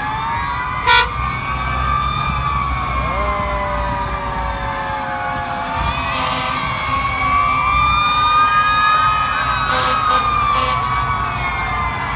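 Several fire truck sirens wailing at once, their rising and falling wails overlapping, over the low rumble of the trucks' engines. A short loud horn blast sounds about a second in.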